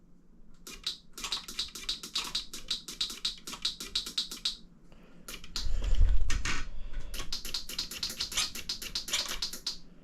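Shimano 105 Di2 electronic rear derailleur shifting under power in two quick runs of rapid clicking, several shifts a second, as the newly connected system is tried out. A dull thump comes about six seconds in, between the runs.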